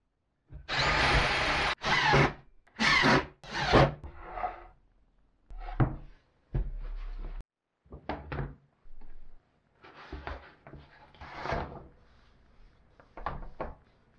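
Aluminium channel profiles sliding and scraping against a plywood bench for the first few seconds, then bamboo flooring strips being handled, knocking and rubbing together in short bursts.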